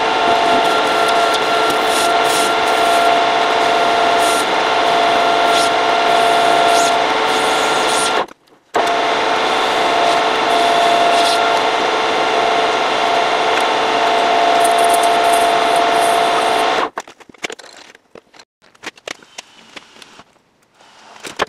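Metal lathe turning the steel end of a Tesla Model S half-shaft: a steady whine with several fixed tones over the scrape of the cut. It cuts out for a moment about eight seconds in, runs again, and stops about seventeen seconds in, followed by a few light clicks.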